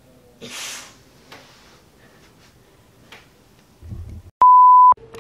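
A loud, steady beep about half a second long near the end: a single pure tone edited into the soundtrack that blanks out all other sound, in the manner of a censor bleep. Before it, a brief rustle about half a second in and a few faint knocks.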